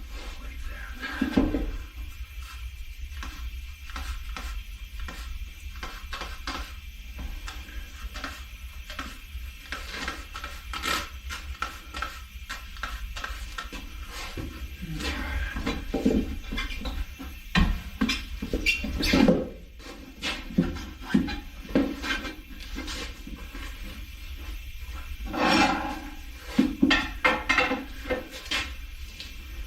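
Irregular metal clanks, knocks and rubbing scrapes of a tire being worked onto a wheel on a tire changer, over a steady low hum.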